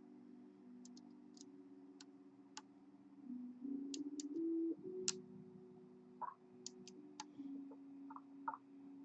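Lock pick and tension wrench working the pin tumblers of a pin-tumbler lock: scattered light, sharp metallic clicks and ticks, irregularly spaced, as pins are lifted and set. Faint low steady tones that change pitch every second or so run underneath.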